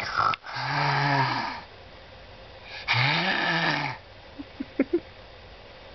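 A voice makes two drawn-out, rasping, growl-like sounds about a second each; the second one rises and then falls in pitch. A few small clicks follow.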